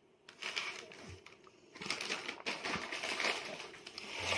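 A crisp baby snack cracker crackling and crumbling as it is handled and broken: irregular dry crackles that get busier about halfway through.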